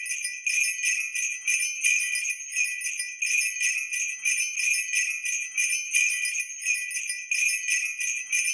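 Sleigh bells shaken in a steady rhythm of regular strokes, with no other instrument under them.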